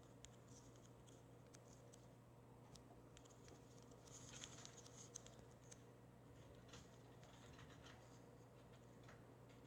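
Near silence: faint scattered light clicks and scratches of handling, a little busier about four seconds in, over a low steady electrical hum.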